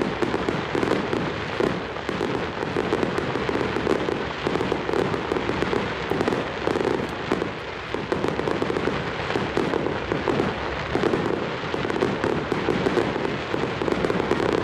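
Aerial fireworks bursting and crackling in rapid succession, with many pops overlapping so the noise never pauses.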